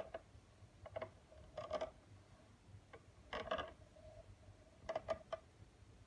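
Faint clicks and taps in several short clusters, each with a light ringing tone behind it.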